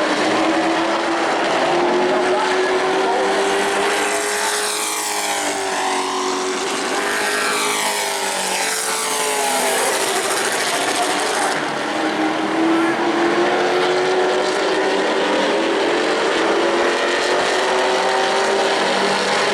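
Race trucks running at speed on a short oval, their engines at full throttle. Between about four and ten seconds in, a pack passes close, and the engine pitch sweeps up and then falls away as they go by.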